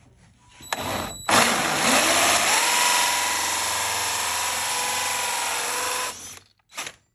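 Cordless drill driving a 2-inch diamond hole saw through a metal speaker grill. It starts briefly about a second in, then runs as a loud, steady grinding whine whose pitch rises and then holds for about five seconds before stopping, with one short burst near the end.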